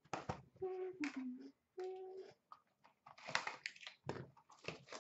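A sealed hockey card hobby box being handled and torn open by hand: crinkling, scraping and tearing of its packaging in short irregular bursts. Two brief whining tones sound about a second in and again near two seconds.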